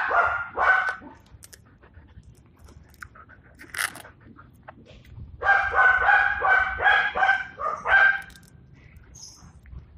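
Dog giving short, high-pitched calls: a couple at the start, then a quick run of about eight, roughly three a second, from about five and a half seconds in.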